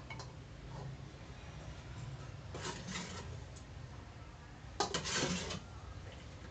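Metal ladle scraping and clinking against an aluminium cooking pot while boiled chillies are scooped out of the broth: a short run of scrapes about two and a half seconds in, and a louder, longer one about five seconds in.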